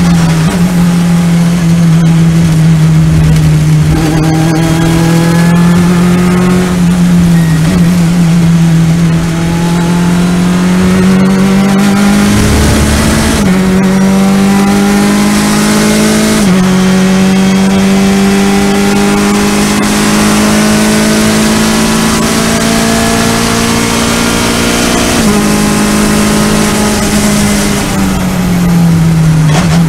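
Race car engine heard from inside the cockpit, pulling hard on track. Its pitch climbs steadily through each gear and steps sharply at each of several gear changes, with a brief lift about twelve seconds in.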